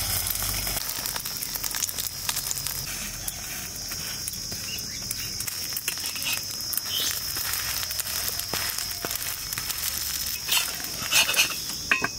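Egg omelette frying in oil on a flat tawa over a wood-fired clay stove: a steady sizzle full of fine crackles, with a few louder spatula scrapes near the end as it is lifted off.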